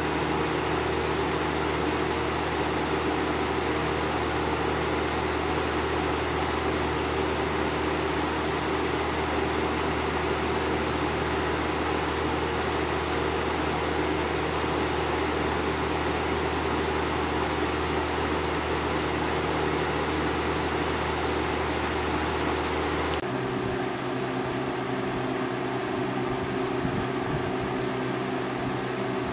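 2004 Haier 20-inch box fan with a 2.1 amp McMillan motor running steadily, a blade-whooshing hum. Near the end the hum changes abruptly, losing its deepest part and becoming slightly quieter.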